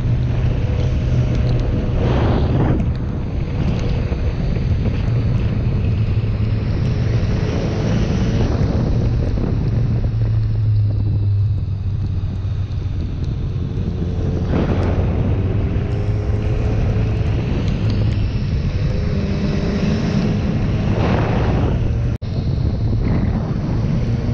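Motorcycle engine running at steady cruising revs under a heavy rush of wind over the microphone. The engine note sags a little around the middle and picks up again near the end.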